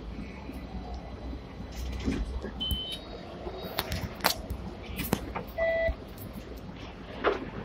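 Hong Kong tram standing at a stop with a low, steady rumble. Two short electronic beeps sound, a high one a little before the middle and a lower, louder one past the middle. Several sharp clanks and knocks come between them and near the end, at the front door where passengers get off.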